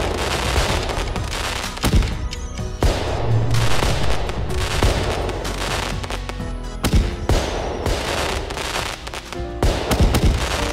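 Fireworks bangs and crackling, with repeated sharp booms and fizzing over music that plays underneath; the bangs stop near the end.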